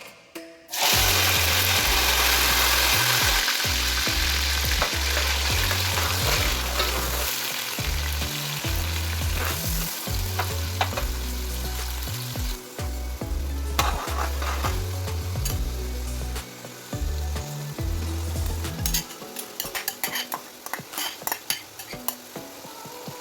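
Food frying in a pot of hot vegetable oil. A loud sizzle bursts in about a second in, as if food has just hit the oil, then slowly settles. A spoon scraping and clicking against the pot grows more frequent near the end as the food is stirred.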